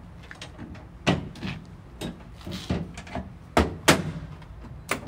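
Hinged side locker door and its latches on a Land Rover Defender 110 body being worked and shut: a run of sharp metal clunks and knocks, the loudest two close together about three and a half seconds in.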